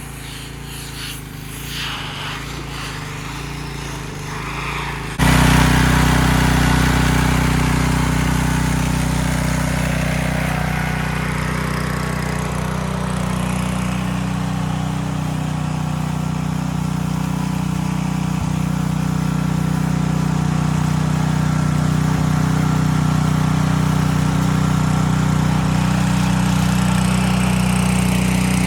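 Ryobi 2900 PSI gas pressure washer's engine running steadily under load, with the hiss of the water spray. About five seconds in it becomes abruptly louder and closer, then holds steady.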